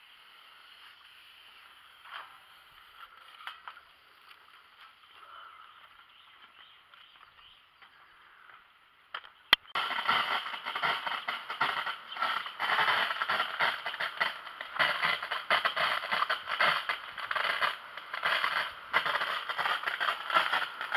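A jet of water spurting from a water pipeline and spattering onto the foliage: a loud, hissing, spattering rush that starts abruptly about halfway through. Before it there are only faint sounds.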